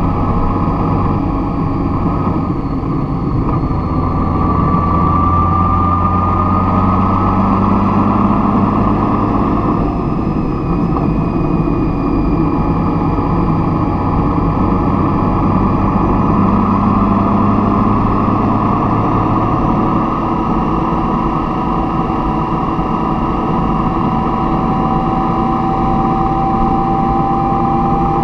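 A vehicle's engine running steadily, its pitch drifting slowly up and down.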